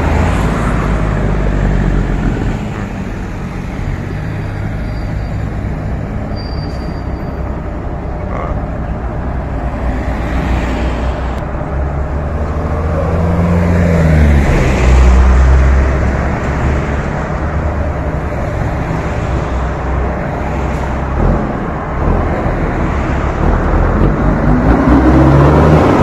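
Heavy diesel trucks and cars passing close by on a highway, with engine rumble and tyre noise. The rumble peaks about halfway through as a truck goes by, then grows again near the end as an International LoneStar tractor pulling a dump trailer comes up alongside.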